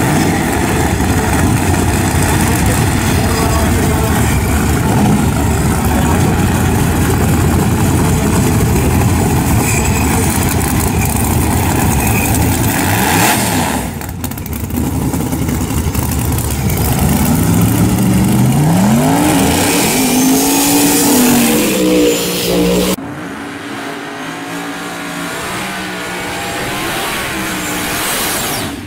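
Drag-race car engines: the twin-turbo Corvette's engine running loudly for about the first half, then after a cut engines on the starting line revving in several rising sweeps. Near the end a quieter stretch, where a car does a burnout.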